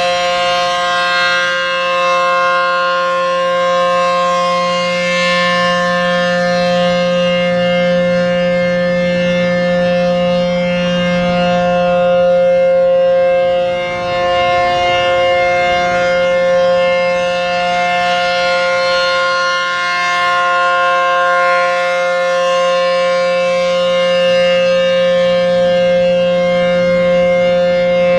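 ACA P-15 rotating outdoor warning siren sounding a steady alert signal, a chord of several held pitches. It grows louder and softer slowly as the rotating head sweeps around, with a marked dip about halfway through.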